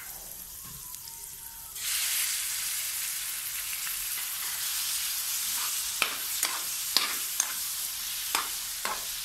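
Chopped raw chicken frying in melted butter in an aluminium pan. The sizzle starts suddenly about two seconds in and carries on. From about six seconds in, a metal spoon clinks and scrapes against the pan several times as the chicken is stirred.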